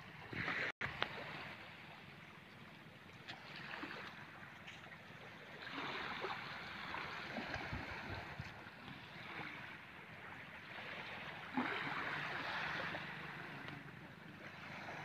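Shallow sea water washing over a sandy flat, swelling and easing every few seconds, with wind buffeting the microphone.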